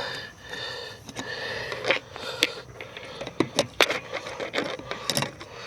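Test-light probe and hands working at a van's fuse block: irregular small metal clicks, taps and scrapes as the probe is moved between breaker-socket terminals.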